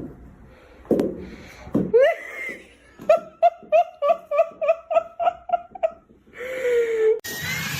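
A person laughing hard: a few short voiced outbursts, then a rapid run of about a dozen 'ha' pulses, four to five a second, ending in a drawn-out falling vocal sound.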